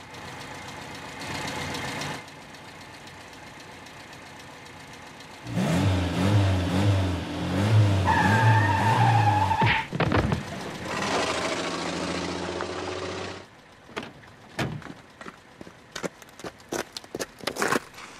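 A car engine starts up and revs hard about a third of the way in, with a wavering squeal over it, then runs on more steadily for a couple of seconds before cutting off. A scatter of sharp clicks and knocks follows near the end.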